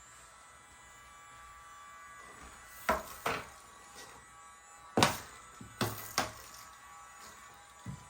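Hard plastic knocks and clacks as the LED air hockey toy is handled, five irregular knocks with the loudest about five seconds in. A faint steady tone sits underneath.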